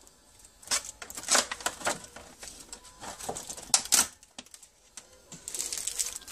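Sharp clicks and taps of small parts and tools being handled on a workbench, several in quick succession, then a small plastic parts bag crinkling near the end.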